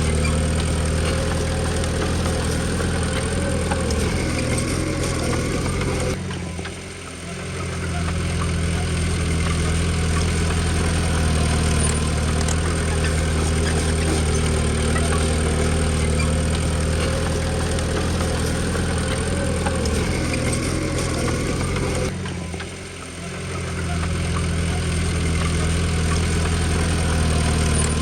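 Diesel engine of a Komatsu D20P bulldozer running steadily. The sound drops away briefly twice, about a quarter of the way in and again about three-quarters of the way in.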